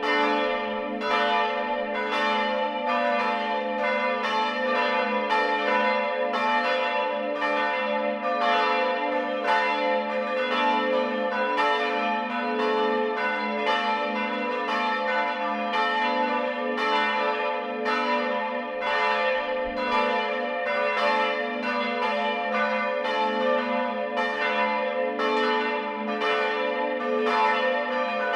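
Church bells ringing in a peal, strokes coming about one and a half a second with the bells' notes humming on between them.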